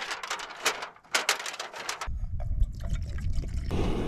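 Foil freeze-dried meal pouch crinkling and rustling as it is torn open and unfolded. Hot water is then poured from the cooking pot into the pouch, a steady rush near the end.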